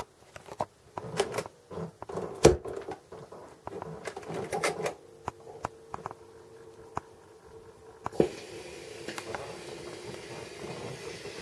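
Clicks and knocks from a record player being handled as its tonearm is moved over the spinning record. About eight seconds in there is a sharp click as the stylus sets down, followed by steady surface hiss with a few ticks and a faint hum.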